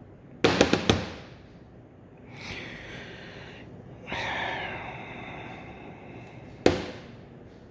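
Workshop handling noise from a fuel pump filter being taken apart: a quick run of sharp knocks, then two hissing bursts, the second falling slightly in pitch, and one sharp knock near the end.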